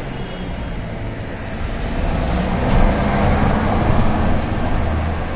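A motor vehicle passing, its engine rumble and road noise swelling about two seconds in and easing off near the end.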